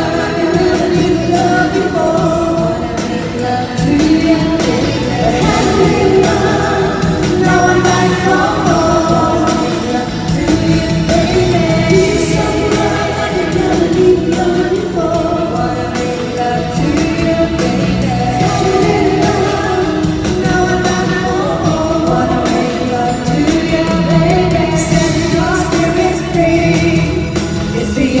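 Music with singing: voices carrying a melody over an accompaniment that runs throughout.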